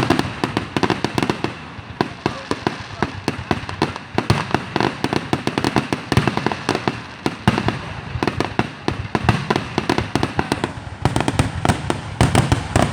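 Fireworks going off as a rapid, continuous crackle of many small bangs, growing denser and louder about eleven seconds in.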